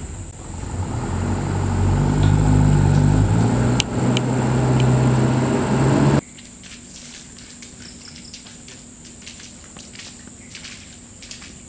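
A motor engine running close by, its low pitch stepping up a few times, cut off abruptly about six seconds in. After that, insects drone steadily in a high tone, with faint clicks.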